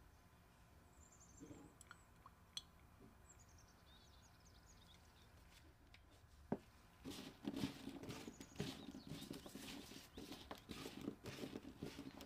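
Raw cauliflower florets tossed with tongs on a metal baking tray: a quick run of crisp rustling and clicking that starts about seven seconds in, after a near-quiet stretch with a single knock.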